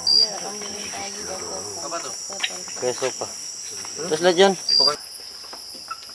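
Night-time rainforest insect chorus: a steady high-pitched trilling of many crickets and katydids, with a short high chirp near the start and again about five seconds in. Quieter warbling sounds come and go underneath, loudest about four seconds in, and the chorus changes abruptly about five seconds in.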